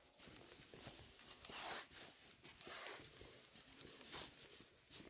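Faint rustling and rubbing noise, close to silence, swelling softly twice in the middle.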